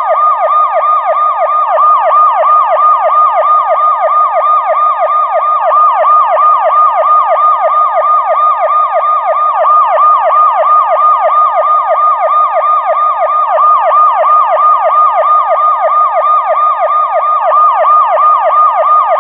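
Electronic police car siren in a fast yelp, its tone sweeping up and down about four times a second, loud and unbroken.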